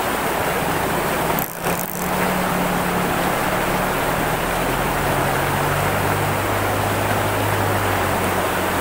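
Shallow river rushing over rocks, a steady wash of water noise. Under it runs a low engine hum whose pitch drops in steps.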